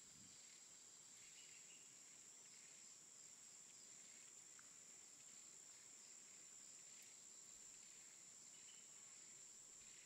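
Near silence: a faint steady hiss with a thin, unchanging high-pitched whine.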